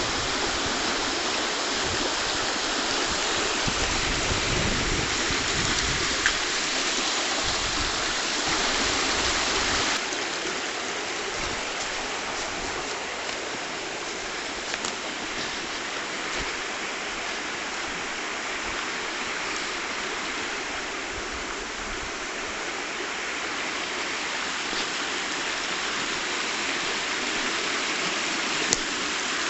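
Small stream running steadily, a constant wash of flowing water that drops a little in level about ten seconds in.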